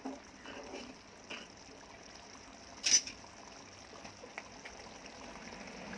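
Thick pepper curry simmering and bubbling in the pan with small liquid pops, and a single sharp clink about three seconds in.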